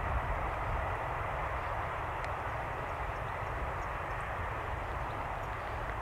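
Freight train hauled by a Škoda "laminátka" electric locomotive approaching from a distance: a steady, even rumble that holds at the same level.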